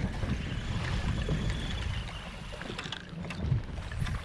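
Wind buffeting the microphone as a steady low rumble, with a few light knocks.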